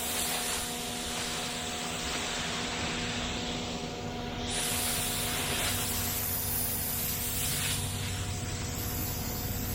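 Pressure washer running, its water jet hissing steadily on concrete, with a steady motor tone underneath. The spray gets louder about four and a half seconds in.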